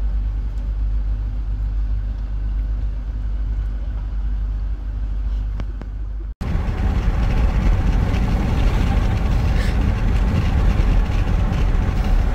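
Steady low rumble of a car's cabin noise. After an abrupt cut about six seconds in, louder engine and road noise inside a Mitsubishi SUV driving at highway speed.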